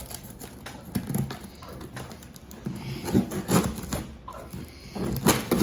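Cardboard shipping box being handled and its top flaps pulled open: irregular rustling and scraping with light knocks, busiest about three seconds in and again near the end.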